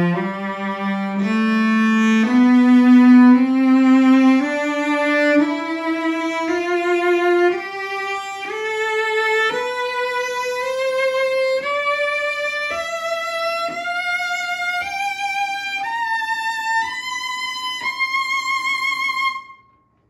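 Early-20th-century French cello (Collin-Mezin 'Paolo Giacomelli', made by Jérôme-Thibouville-Lamy of Mirecourt) bowed in a slow rising scale, one note about every second, climbing high up the fingerboard with vibrato on the top notes. The last note is held and stops near the end.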